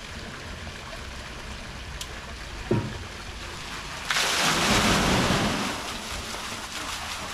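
Traditional wooden water wheel dumping its load: water gushes and splashes down into the pond below for about a second and a half, starting about four seconds in, then fades. A brief sound falling in pitch comes a little more than a second before the gush.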